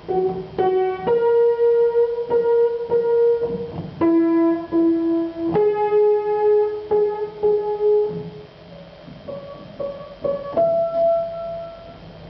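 An old upright piano being played: a slow series of single notes and chords, each struck and left to ring for a moment, quieter and sparser in the last few seconds.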